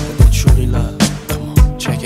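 Music with a steady drum beat over sustained chords.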